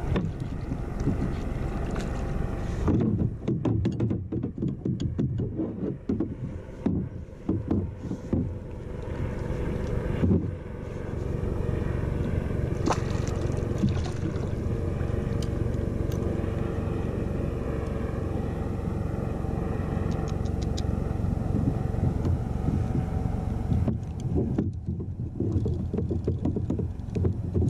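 Wind rumbling on the microphone over water lapping against a plastic kayak, with irregular knocks and splashes in the first ten seconds as a fish thrashes alongside and is gaffed. A faint steady hum runs through the middle.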